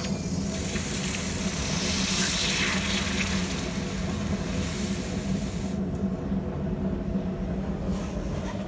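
Hot copper-and-steel spatula quenched in a tub of water: steam hissing and the water bubbling around the blade as it cools, dying away about six seconds in. A steady low hum runs underneath.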